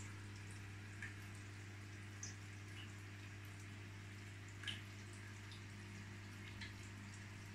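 Steady low hum of an aquarium pump, with a few faint water drips plinking over it; the clearest drip falls a little past halfway.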